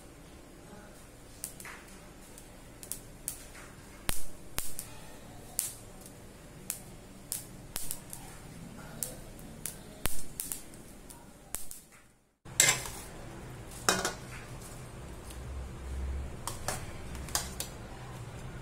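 Mustard seeds popping in hot oil in a steel kadai: sharp, irregular pops, roughly one every half second to second. After a sudden break about twelve seconds in, a metal spoon clinks and scrapes against a steel pan.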